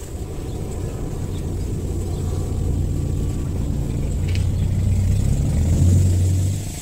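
A motor engine running with a low hum, growing louder over several seconds and dropping away suddenly near the end.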